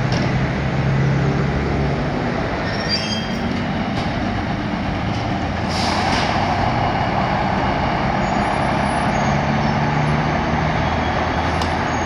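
Fire trucks' diesel engines running in the station bay, a steady low drone, with a short hiss of air about six seconds in.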